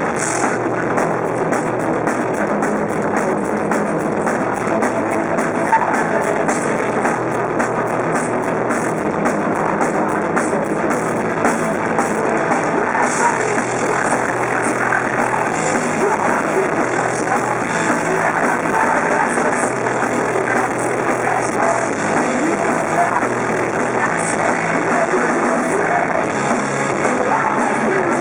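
Punk rock band playing live: distorted electric guitars, bass guitar and drum kit driving steadily, with a singer at the microphone.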